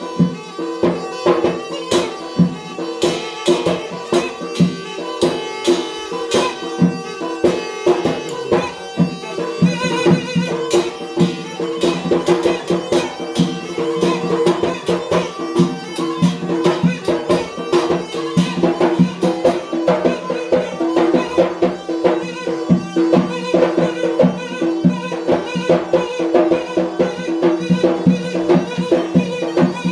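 A Yemeni mizmar reed pipe playing a continuous folk dance melody over fast, even beating on a metal tray.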